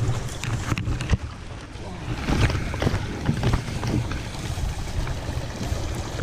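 Rushing, splashing rapids of a flooded river around a kayak, with wind buffeting the microphone. Several sharp knocks come in the first second.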